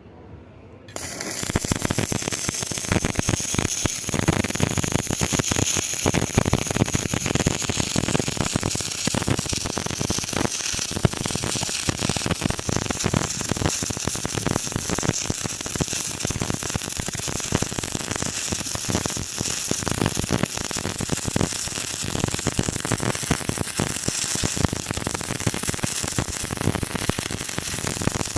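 Electric arc welding: the arc strikes about a second in and then crackles and sizzles steadily as a bead is run.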